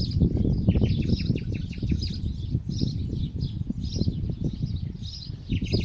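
Small birds chirping, with repeated short high calls and a quick trill about one to two seconds in, over a strong, uneven low rumble.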